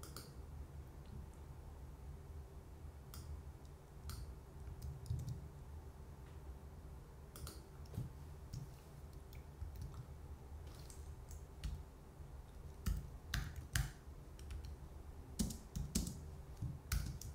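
Computer keyboard typing: scattered keystroke clicks, sparse at first and coming in quicker runs near the end, over a faint steady low hum.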